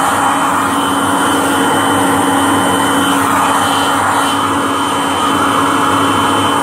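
Vacuum cleaner running steadily, its motor giving a constant hum with a thin high whine over the rush of suction.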